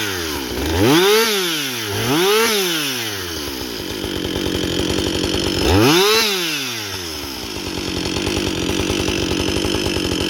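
Two-stroke chainsaw running just after a start on fast idle, revved up and back down three times (about a second in, about two and a half seconds in, and about six seconds in) and running steadily between and after the revs.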